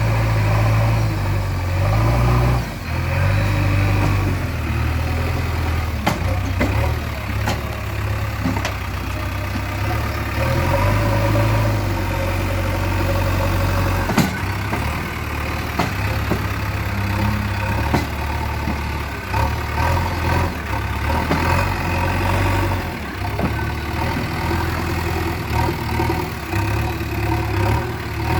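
JCB 3DX backhoe loader's diesel engine running at low to moderate revs, its pitch shifting up and down now and then, with a few sharp knocks from the machine.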